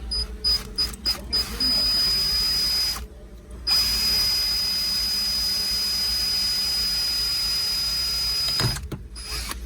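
Power drill boring into the centre of a car's push-start button: a few short trigger blips, then a steady high whine that stops briefly about three seconds in and runs again for about five seconds before stopping near the end.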